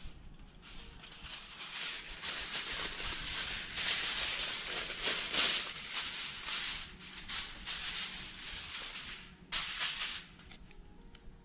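Sheet of aluminium foil crinkling and rustling as it is handled, in irregular crisp bursts that die down about ten seconds in.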